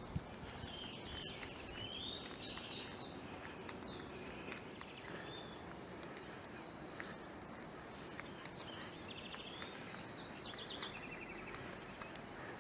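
Small songbirds chirping and calling in quick, high, short notes, several overlapping at first, thinning to scattered calls after about four seconds, over a steady low background hum.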